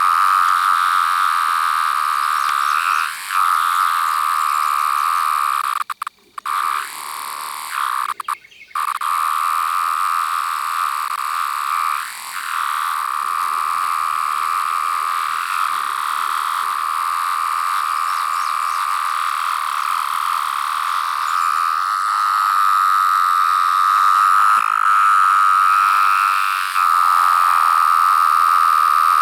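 17-year periodical cicada calling with a steady, high-pitched whine, broken by two short pauses about six and eight seconds in and marked by a few brief swoops up and down in pitch.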